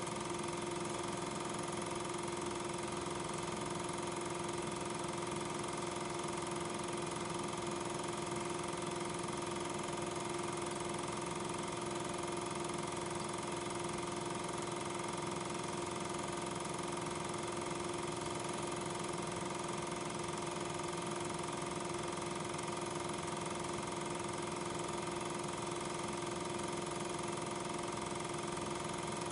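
Steady mechanical hum of an 8 mm film projector running, with a constant whir and no changes; no sound of the streetcars themselves, as regular 8 mm film carries no soundtrack.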